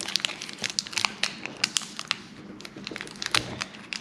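Foil wrapper of a Pokémon Sun and Moon booster pack crinkling as it is opened by hand, a dense irregular run of sharp crackles.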